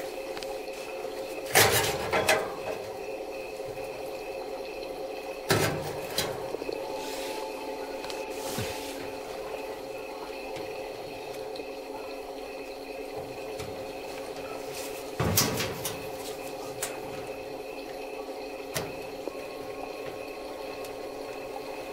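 Knocks and clunks of hands and parts being handled inside an opened clothes dryer cabinet: a pair near the start, one about five seconds in, and a cluster about fifteen seconds in, over a steady hum.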